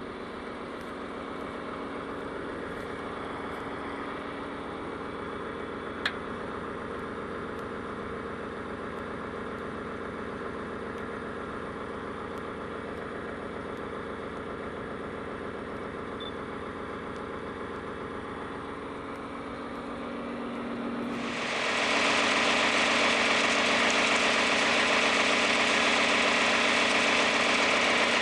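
John Deere tractor engine running steadily under a disc, with a single sharp click about six seconds in; about three-quarters of the way through the sound jumps louder, a strong steady hiss joining the engine note.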